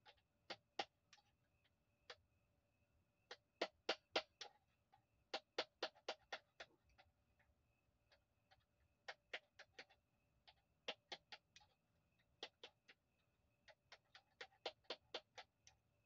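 Ratchet wrench clicking in short runs as it is worked back and forth on the triangular axle nut of a Lime Gen 4 scooter's wheel, loosening it. Sharp clicks come in bursts of a few at a time, every second or two.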